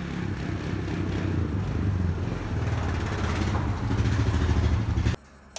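Honda Foreman 450 ATV's single-cylinder four-stroke engine running as the quad drives in, growing louder as it approaches. The sound cuts off abruptly about five seconds in.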